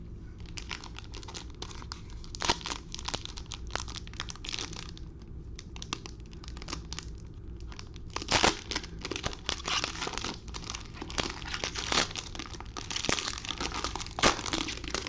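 Plastic wrapping of a sealed trading-card box or pack being torn open and crinkled in the hands, in irregular crackling runs with louder bursts a few times.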